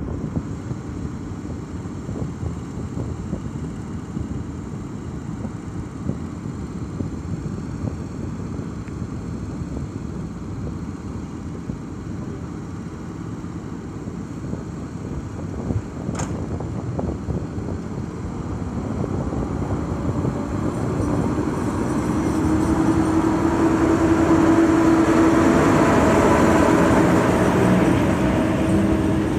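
EP07 electric locomotive with its train of passenger coaches: a steady mechanical hum at first, one sharp click about halfway through, then a growing, louder rolling and humming as the locomotive pulls away and the coaches move past on the rails.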